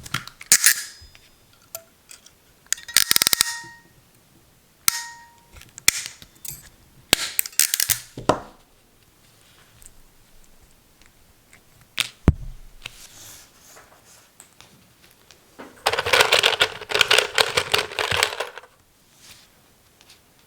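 Hand-tool clicks, snips and scraping from working the end of a CAT6 cable and its plug: a series of sharp clicks and short scrapes, a single loud snap with a thud about twelve seconds in, then a dense run of rapid clicking and scraping for about three seconds near the end.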